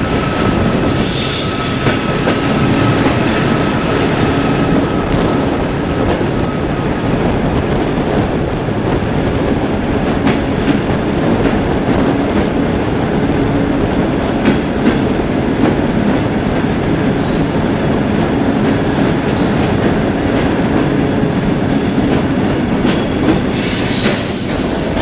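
Passenger train running along the track through a rock tunnel, heard from an open carriage window: a loud, steady rumble of wheels on rails, with a thin wheel squeal over the first several seconds.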